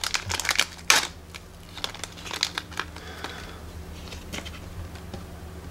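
Small clear plastic parts bag crinkling as it is handled and pulled open, loudest about a second in. A few light clicks and taps of tiny plastic pieces and tweezers follow.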